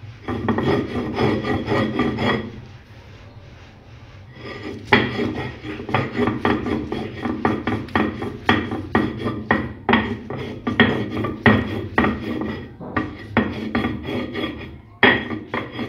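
Stone mano scraped back and forth over a stone metate, coarsely cracking soaked nixtamal corn with a gritty rasping sound. A steady stretch of grinding is followed by a lull of about two seconds, then repeated strokes at about two a second.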